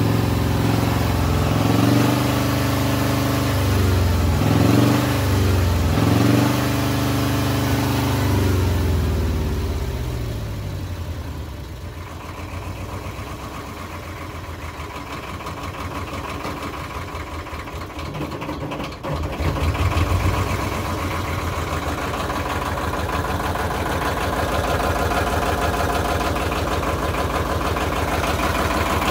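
Cold four-cylinder diesel engine of a 20 kVA emergency generator running fast, its speed rising and falling about every two seconds, then throttled back to a lower, quieter run about ten seconds in. It picks up again a little before twenty seconds in and runs on steadily.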